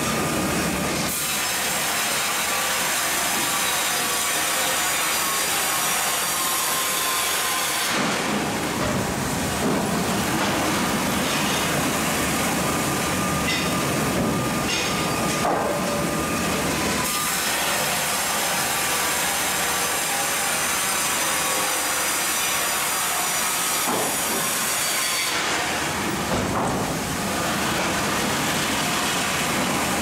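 Industrial sawmill line running: the steady, loud mechanical din of a band saw machine and its conveyor. The noise grows fuller for several seconds at a time, about every eight seconds.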